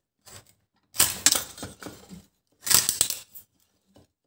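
Homemade kindling splitter's steel blade forced down into a small wooden board, the wood cracking and splintering in two bursts, about a second in and again near three seconds.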